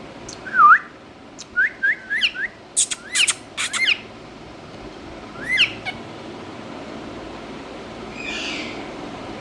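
Indian ringneck parakeet calling: one loud call that dips and then rises, then a quick run of short rising chirps and sharp clicks, and one more chirp about five and a half seconds in. A brief noisy scrape near the end.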